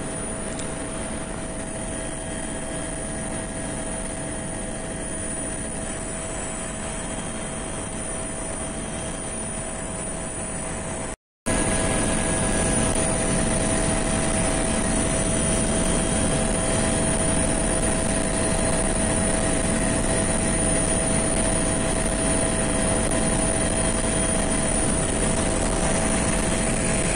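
Helicopter noise heard from inside the cabin in flight: a steady drone of engine and rotors with a constant whine. About eleven seconds in, it cuts out for a moment and comes back louder.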